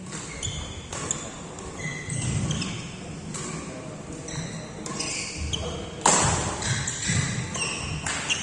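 Badminton doubles rally: rackets strike the shuttlecock with sharp cracks every second or so, the loudest about six seconds in. Between the hits, shoes squeak briefly on the court floor.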